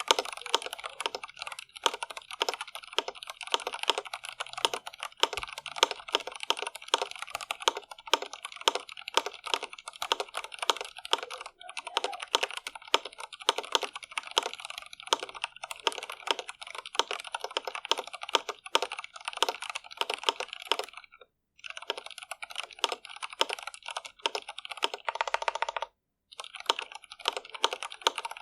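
Fast, continuous typing on an Iqunix L80 mechanical keyboard with stock Cherry MX Red linear switches: a dense run of key clacks, broken by two short pauses, about 21 and 26 seconds in.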